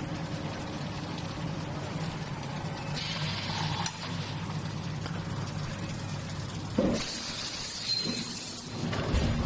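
Bolt hot-forging line machinery running with a steady hum. A short hiss comes about three seconds in. Near seven seconds a sharp clank is followed by a longer hiss, and a knock comes near the end.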